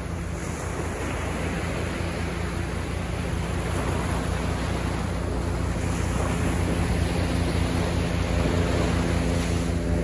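Small surf waves breaking and washing up a sandy beach, a steady rush that grows gradually louder.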